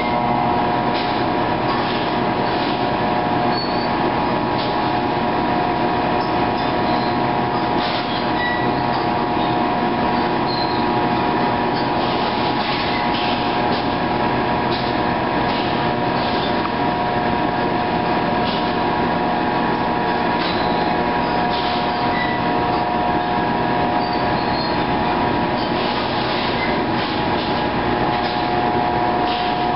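Steady drone of machinery running, holding several constant tones, with intermittent crackling rustles of dry tea leaves and cloth being handled.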